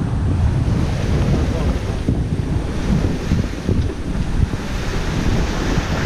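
Strong wind buffeting the microphone in a loud, gusting rumble, with the rush of the sea beneath it, on board a sailboat.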